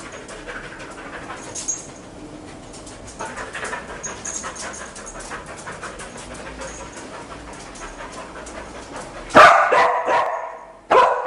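Cadaver dog, an English springer spaniel, moving about quietly, then barking loudly once about nine seconds in and again at the very end. The barks are its trained alert to the scent of human cadaver, given at a cupboard.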